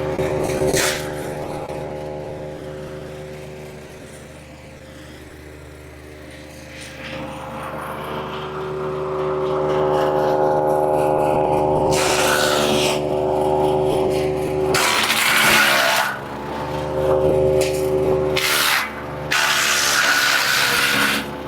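Gasoline engine of a Mech Maxx wood chipper running steadily, with three loud, harsh bursts of branches being chipped in the second half. The engine pitch sags under the load of the later bursts.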